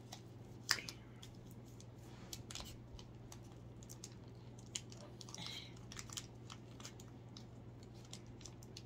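Plastic chocolate-bar wrapper being torn open and crinkled by hand: faint, scattered crackles and rips, with one sharper snap just under a second in.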